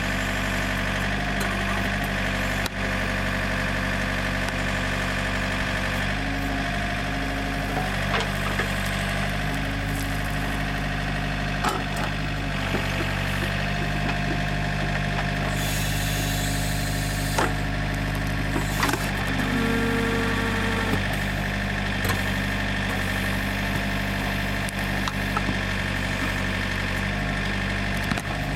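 Yanmar backhoe's diesel engine running steadily, with a few sharp knocks or clanks now and then.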